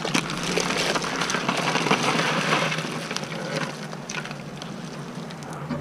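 Live crawdads poured from a bucket into a big pot of boiling water: a rush of splashing water and rattling shells, loudest for about the first three seconds, then settling into a quieter hiss.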